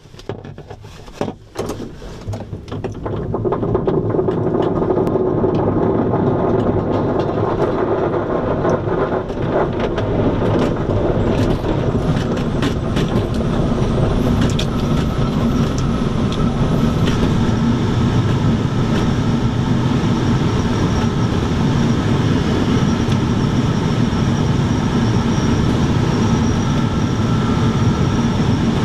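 Inside a Schempp-Hirth Cirrus sailplane's cockpit during an aerotow takeoff. Sharp knocks and rattles come in the first seconds as it starts rolling on the runway. From about three seconds in there is a steady, loud rumbling noise as it gathers speed and lifts off.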